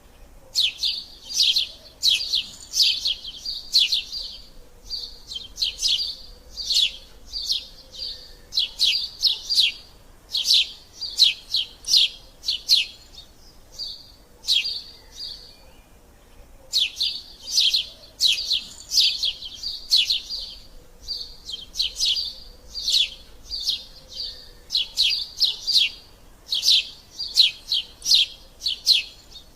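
Eurasian tree sparrow chattering: fast runs of short, harsh chirps in bursts, broken by a pause of about two seconds near the middle. This is the excited chatter the species gives when squabbling.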